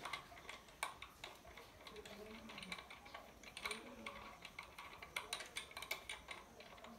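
Light, irregular clicks and taps of metal bolts, nuts and washers being fitted by hand to a sewing machine clutch motor's mounting feet.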